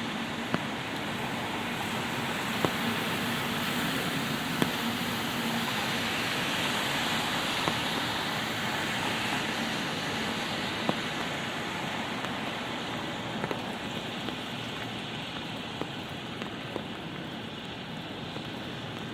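Light rain falling: a steady hiss of rainfall with a few scattered, sharper single drop taps.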